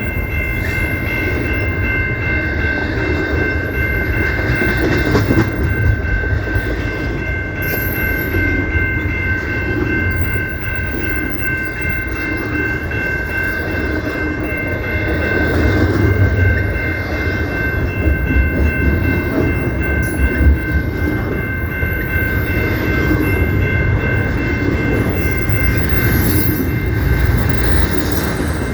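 CPKC train rolling past with a steady low rumble and wheel clatter. Over it runs a continuous high-pitched whine of several steady tones that does not break.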